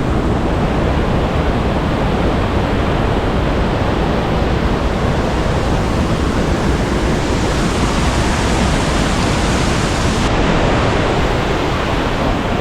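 Waterfall rushing: a loud, steady, even noise of falling water close by.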